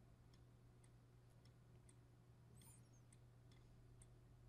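Near silence, with faint computer mouse clicks, about two a second at uneven spacing, over a faint low steady hum.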